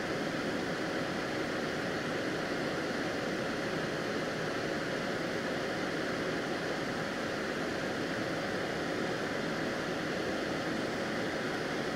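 Exhaust fan running steadily during soldering work: an even hiss of moving air with a faint steady hum.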